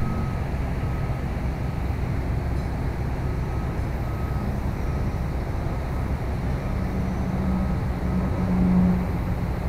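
Diesel engines of high-reach demolition excavators running with a steady low rumble; one engine note swells louder for a couple of seconds near the end. Faint short high beeps come and go.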